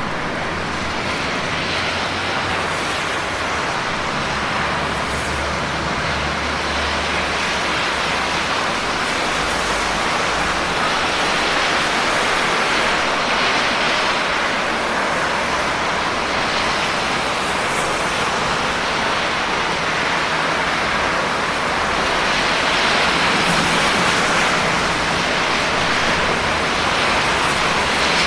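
Steady rain falling, a dense even hiss with no separate drops standing out.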